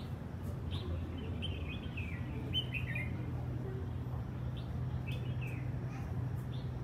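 Small birds chirping in short, scattered calls, a few falling in pitch and coming in quick little runs, over a steady low background hum.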